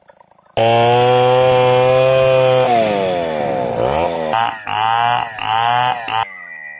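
Stihl 070 two-stroke chainsaw running at high revs, starting abruptly about half a second in and holding a steady pitch. The pitch then slides down and climbs back, and the saw is revved in several short bursts before it cuts off abruptly just before the end.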